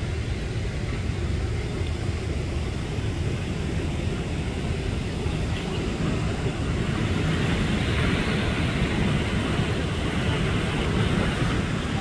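Rushing river water and waterfall: a steady low rumble with a hiss, growing louder and brighter about seven seconds in.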